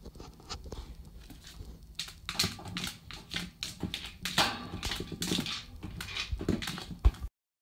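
Dogs playing with a red rubber treat toy on a tile floor: irregular clicks, taps and scrapes of claws and rubber on the tiles, busier from about two seconds in.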